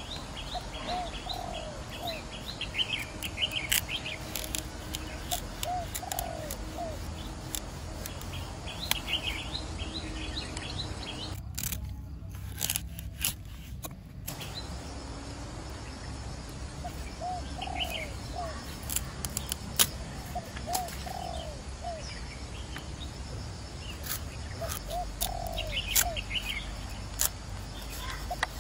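Doves cooing in short phrases of two or three notes, repeated every few seconds, with small birds chirping in quick clusters. Scattered sharp clicks run through it.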